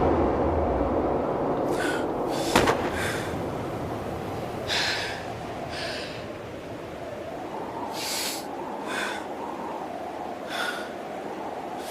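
A person breathing hard in short, ragged gasps, about one every second or so, over a steady background hiss. A sharp click comes about two and a half seconds in.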